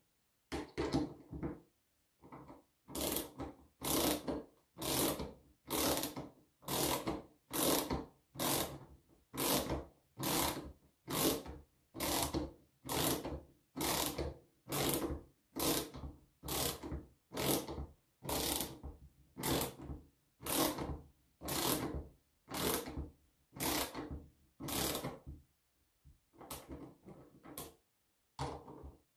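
Ratcheting screwdriver driving the screws of a plastic brushcutter throttle handle housing: a rasping run of ratchet clicks on each back-stroke, about one stroke a second, with a short pause near the end before a few quicker strokes.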